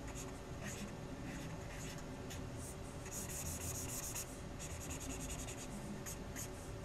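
Felt-tip marker scratching across paper in short drawing strokes, with a run of rapid back-and-forth strokes about three seconds in as shading is filled in.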